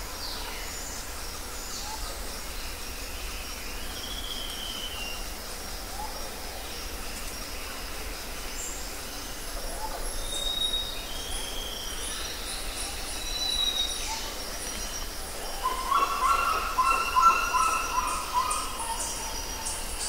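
Forest ambience: birds calling with short whistled notes over a steady hiss. Insects chirp high and fast through the second half, and a louder, layered call rises over the rest near the end.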